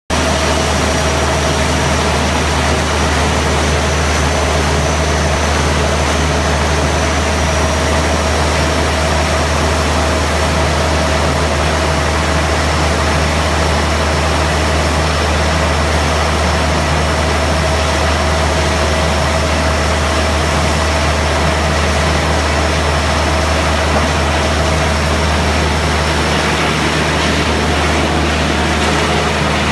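HDPE pipe shredding line running: the machinery's motors give a loud, steady drone with a deep hum and a constant whine, without separate crushing impacts.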